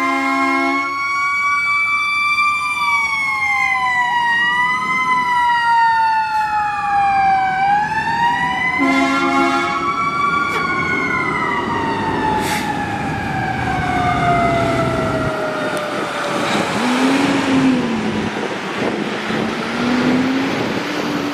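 Fire engine's Screaming Q mechanical siren wailing together with other siren tones that rise and fall across one another. Air horn blasts sound at the start and again about nine seconds in. The Q winds down in a long slow fall in the second half, and a rushing noise grows near the end.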